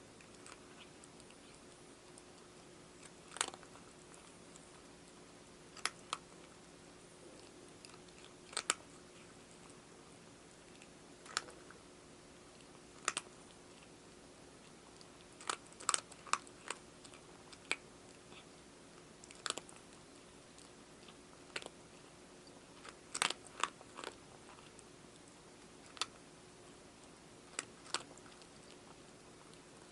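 A cat crunching dry food: sharp separate crunches every couple of seconds, now and then two or three in quick succession.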